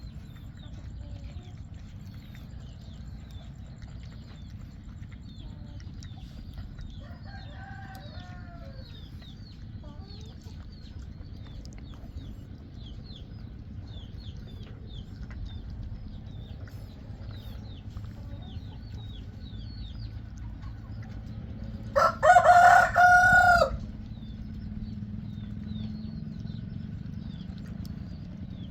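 A rooster crows once, loudly, about three quarters of the way through, and a fainter call comes near the 8-second mark. Short, high bird chirps repeat throughout over a steady low outdoor rumble.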